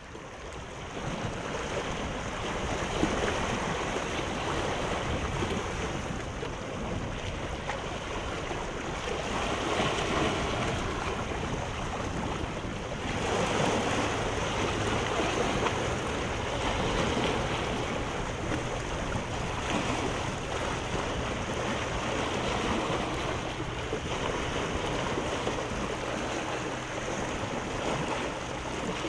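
Sea surf washing in, in uneven swells, with wind noise on the microphone. A low steady hum comes in about halfway through.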